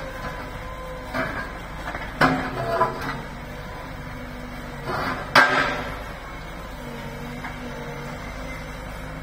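Diesel engine of a road-rail excavator running steadily, with a few metallic clanks and knocks from its grab bucket and arm. The loudest clank comes about five and a half seconds in.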